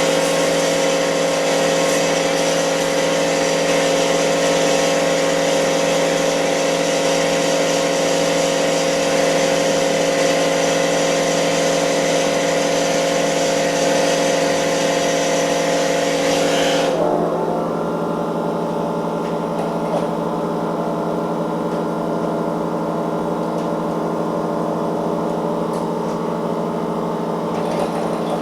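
A machine running with a steady multi-tone hum and hiss. About two-thirds of the way through, the hiss cuts off suddenly and the hum carries on a little quieter at a changed pitch.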